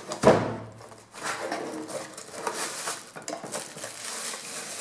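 Cardboard product box being opened by hand: a sharp rip near the start as the taped lid flap is pulled open, then cardboard and plastic wrapping rustling and scraping as the contents are slid out.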